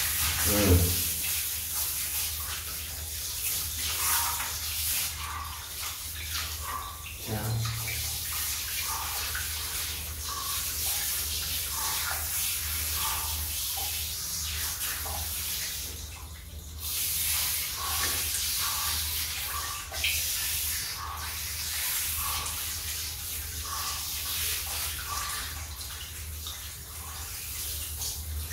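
Water spraying from a shower hose onto a puppy's wet coat as it is rinsed, a steady splashing hiss that briefly drops away about halfway through.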